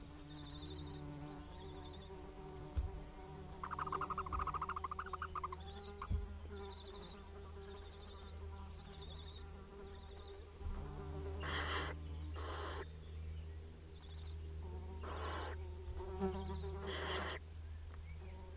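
Barn owl owlets in the nest giving short rasping hisses, their food-begging calls, five times in the second half, over a steady low hum; a brief rapid rattling call sounds about four seconds in.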